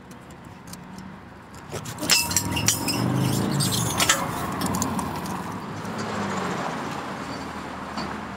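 A vehicle passing on a road bridge, its rumble swelling about two seconds in and slowly fading, with a cluster of sharp metallic clinks as it comes up.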